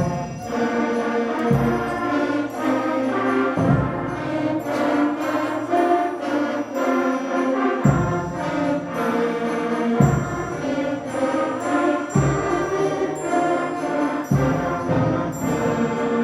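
A 5th and 6th grade school concert band playing held brass and woodwind chords, with a low drum stroke every two seconds or so.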